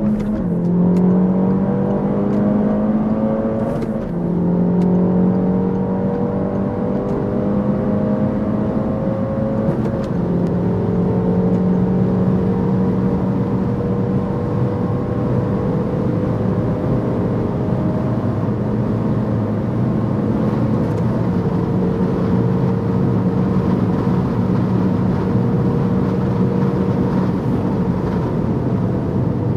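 Peugeot 308 GTi's turbocharged 1.6-litre four-cylinder engine pulling at full throttle at high speed, its pitch climbing slowly. There is a brief dip and a gear change about four seconds in, over steady road and wind noise.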